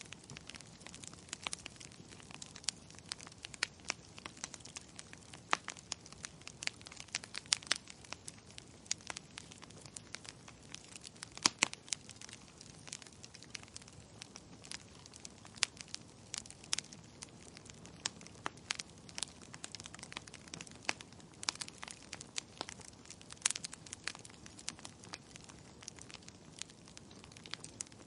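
Wood fire burning in a fireplace, with irregular sharp crackles and pops of varying strength over a soft steady hiss of flame.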